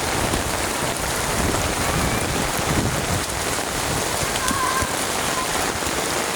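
Steady downpour of rain: a dense, even hiss of drops hitting the ground.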